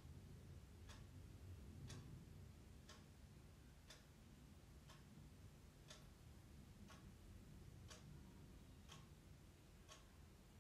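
A clock ticking faintly and steadily, one tick a second, over a low hum of room tone.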